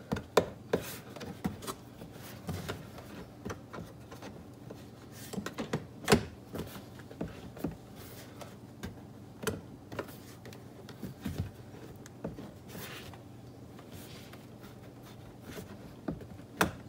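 Hands working a plastic door-handle LED light piece and its wire down into a car door: scattered sharp plastic clicks and taps with some rubbing and scraping, the loudest tap about six seconds in.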